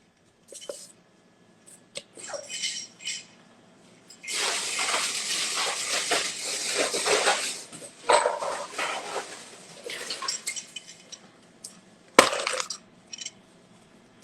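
Kitchen sounds: clinks of dishes, and water running from a tap for about three and a half seconds. One sharp knock comes near the end.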